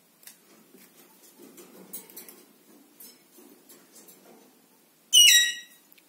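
Alexandrine parakeet giving one loud call about five seconds in, falling slightly in pitch and lasting under a second. Before it, soft clicks and shuffling.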